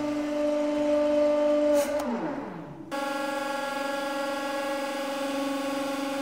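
Hydraulic press pump motor running with a steady hum. About two seconds in it winds down in a falling pitch; at about three seconds it cuts abruptly to the pump humming steadily again as the ram takes up load.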